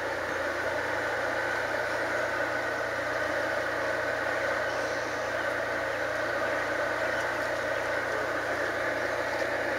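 A steady mechanical hum like an engine running, unchanging throughout.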